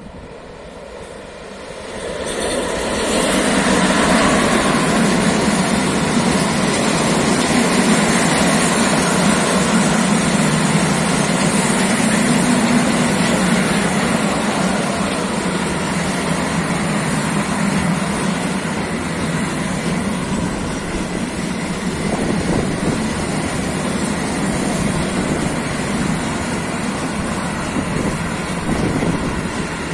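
Freight train of bulk-powder silo wagons, hauled by an electric locomotive, approaching and then passing close by. The noise swells over the first few seconds and then holds as a steady rolling rumble of steel wheels on rail.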